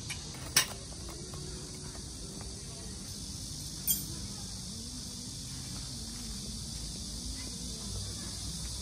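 Steady high-pitched drone of summer insects, with two sharp clicks from camping gear being handled: one about half a second in, the other about three seconds later. Faint distant voices sit underneath.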